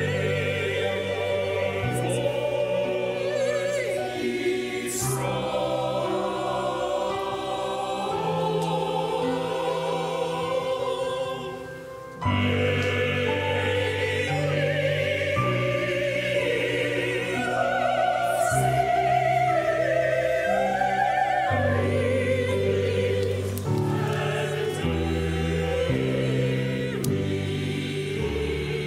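Mixed choir singing sustained chords with vibrato, with piano accompaniment. About twelve seconds in the sound drops away briefly, then the choir comes back in louder.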